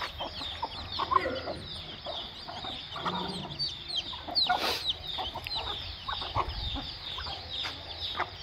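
Chicks peeping continually, many short high downward-sliding peeps a second, with hens clucking lower among them.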